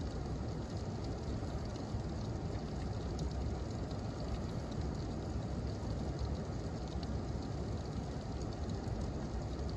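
Thunderstorm rain falling steadily: a continuous rushing hiss with small scattered ticks of drops.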